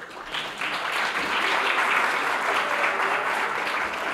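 Theatre audience applauding, the clapping thickening and growing louder about a second in.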